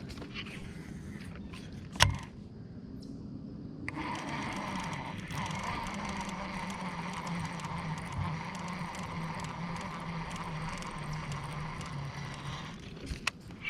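Fishing reel being cranked, winding in line steadily for several seconds, after a single sharp click about two seconds in.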